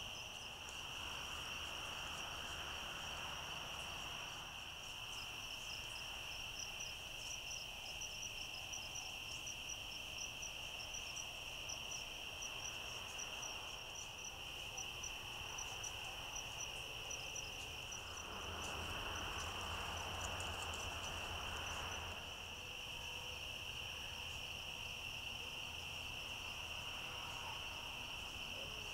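Night insect chorus of crickets: a steady high-pitched drone with rapid chirping trills above it. About two-thirds of the way through, a louder hiss rises over it for a few seconds.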